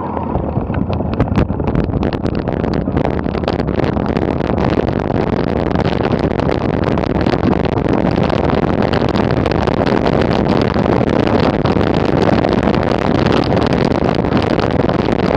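Wind rushing over the action camera's microphone, mixed with a mountain bike's tyres and frame rattling over loose gravel as it coasts downhill. The noise builds over the first couple of seconds as the bike picks up speed, with sharp knocks from stones near the start.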